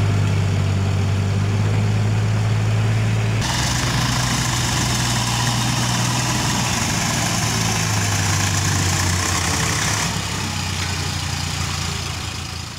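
Diesel tractor engines running steadily at an unchanging pitch, a deep drone. A little after three seconds the sound changes and a hiss joins it, dropping away about ten seconds in.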